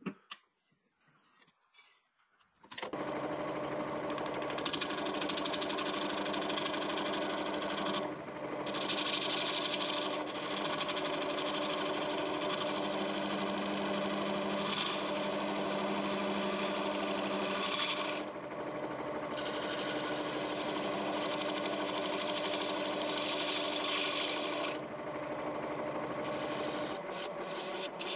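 A wood lathe starts up about three seconds in and runs steadily with a humming tone. A hissing scrape from work on the spinning bowl comes and goes in long stretches, breaking off briefly about eight, eighteen and twenty-five seconds in.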